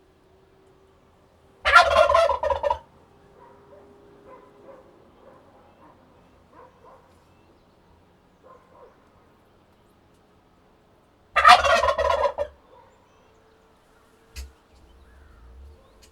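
Turkey gobbling twice, about ten seconds apart, each gobble a loud, rapid, rattling call lasting about a second.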